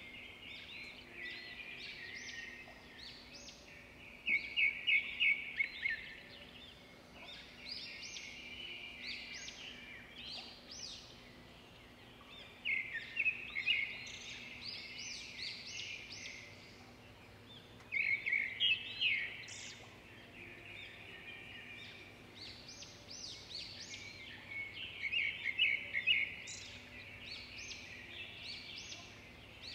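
Birds chirping and singing, with loud bursts of fast trilling every several seconds.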